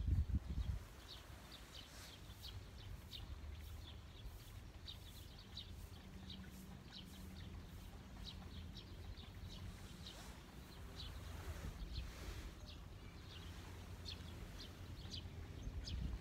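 Small birds chirping: short, high chirps repeating two or three times a second, over a low outdoor rumble. A louder low rumble comes in the first second.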